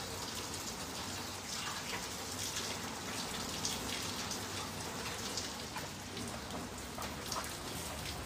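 Water splashing and dripping as a gutted fish is rinsed: a steady hiss of water broken by many small splashes.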